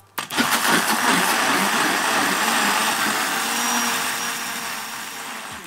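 Countertop electric blender running at speed, beating whole eggs with vanilla until they froth and turn pale. It starts just after the beginning and tapers off near the end.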